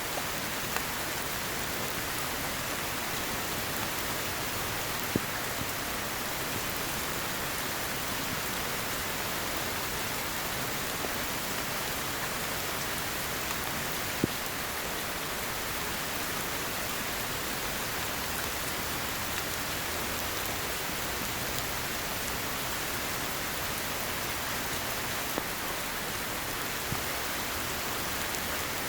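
Heavy rain falling steadily in a rainforest, an even hiss. A few sharp, louder drop strikes stand out, the loudest about halfway through.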